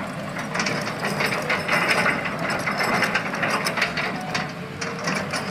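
Diesel engines of a Hitachi excavator and a concrete mixer truck running, with a dense rattling clatter of gravel being tipped from the excavator's bucket into the mixer's hopper, loudest in the middle.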